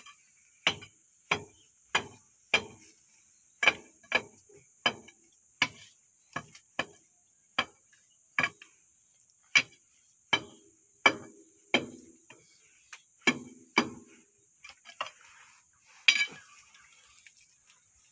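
A steel bar jabbing and chipping at packed mud around a tracked excavator's undercarriage roller, each stroke a sharp metallic clink with a short ring as the bar hits the steel. About twenty strikes come at an uneven pace of roughly one or two a second, then stop with one last clink a couple of seconds later. A steady high hiss runs behind.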